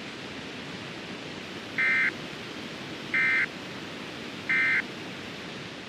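Three short buzzy data bursts about a second apart over steady radio hiss: NOAA Weather Radio SAME end-of-message tones, the signal that closes a warning broadcast.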